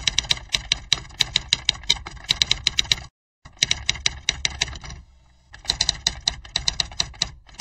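Typewriter typing sound effect: rapid key clicks, about seven a second, in runs broken by a short silence about three seconds in and a quieter stretch around five seconds.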